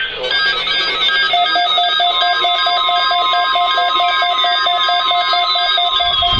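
Rapid electronic beeping, about six short beeps a second at several pitches at once. From about four seconds in, falling tones glide down over the beeps.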